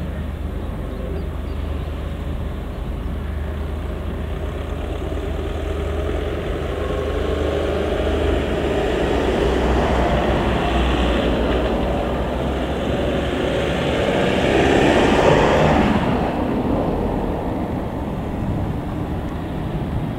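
Diesel shunting locomotive running as it moves freight wagons at low speed, with a steady low engine note. The sound grows louder as the train comes closer, peaks about fifteen seconds in, then eases.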